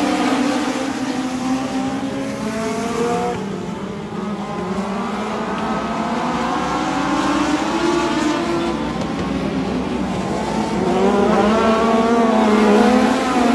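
A pack of small race cars running on a dirt oval, several engines at once, their pitch rising and falling as the drivers accelerate and lift through the turns. The sound swells near the end as the pack passes close.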